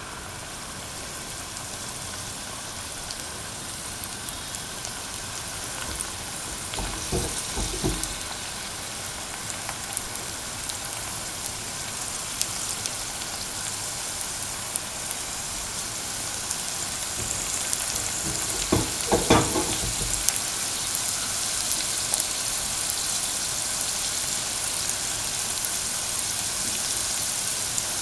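Mung-bean-stuffed dough balls sizzling as they fry in hot oil in a pan, a steady hiss that grows a little louder over time. Two brief knocks come, about 7 seconds in and near the middle, as more balls go into the pan.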